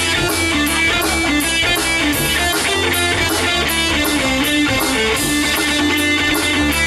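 Live psychedelic rock band playing an instrumental passage: electric guitar over a bass line, with drums and cymbals keeping a steady beat.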